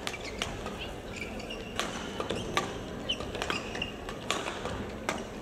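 Badminton doubles rally: rackets striking the shuttlecock in a quick run of sharp cracks, mixed with short high squeaks of shoes on the court floor, over steady background noise from the hall.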